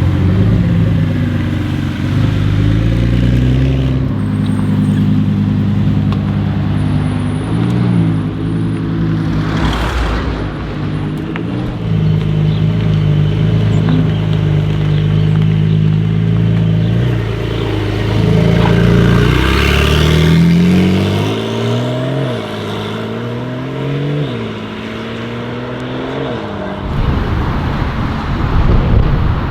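Porsche 992 Carrera S twin-turbo flat-six running at a steady pitch for a long stretch, then accelerating with the revs climbing and dropping back several times as it shifts up. The engine note gives way to a noisy rush near the end.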